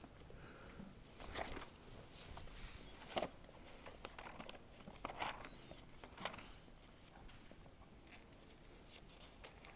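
Faint rustling of Bible pages being leafed through, with several short soft page flicks a second or so apart.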